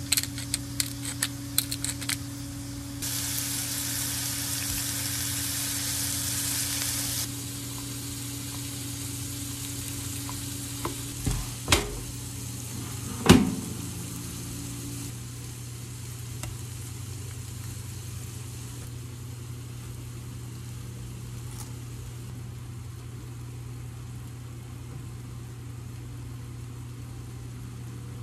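Shrimp sizzling in a hot grill pan, with a few sharp clicks at the start. The loud frying hiss cuts off after a few seconds. Two sharp knocks come about twelve and thirteen seconds in, over a steady low hum.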